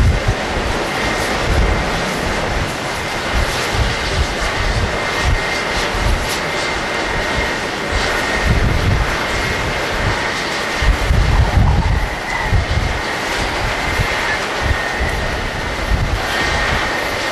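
Jet engines of a Boeing 777-200 at takeoff power, a steady loud rush with a faint high whine over a low rumble that swells and fades unevenly.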